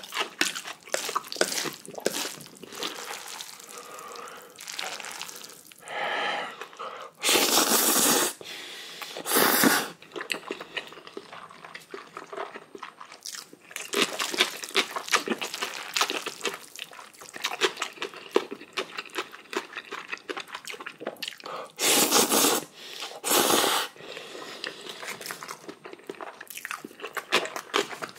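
Close-miked wet chewing and mouth clicks of someone eating black bean instant noodles, with four louder slurps: two about seven and nine seconds in, two more about twenty-two and twenty-three seconds in.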